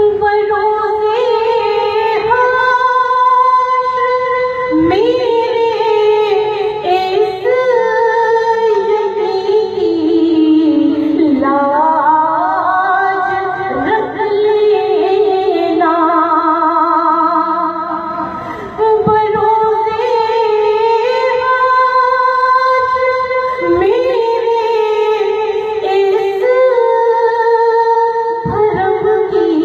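A woman singing a devotional naat in long, held phrases with sliding, ornamented pitch.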